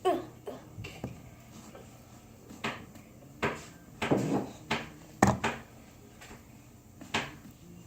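Kitchen things being handled during seasoning of hamburger patties: about a dozen irregular knocks and clicks, the loudest right at the start and a cluster about four to five and a half seconds in.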